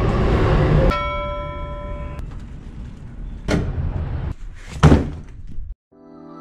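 A train's rumble cuts off about a second in, a steady chime-like tone rings for about a second, then two sharp clunks of a key turning in a door lock; soft music begins near the end.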